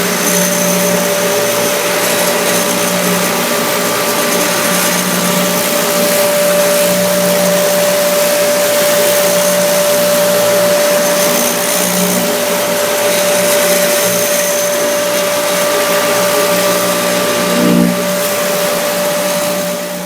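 A 120-volt Cherry Hill random orbital floor sander running steadily, its four orbital pads with 40-grit paper sanding painted oak plywood. A steady motor whine sits over a hiss, and the sound stops abruptly at the very end.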